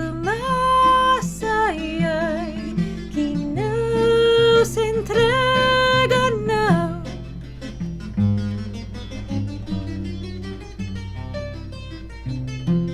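Live acoustic Renaissance-samba trio music: long held melody notes with a wavering pitch over a plucked-string accompaniment. About seven seconds in, the held melody stops and the plucked strings carry on alone.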